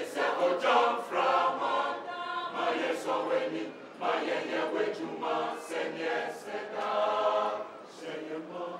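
Mixed choir of women's and men's voices singing together in phrases broken by short pauses for breath.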